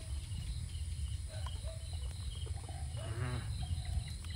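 Insects chirping in short, regularly repeated high trills over a steady low rumble, with one short animal call about three seconds in.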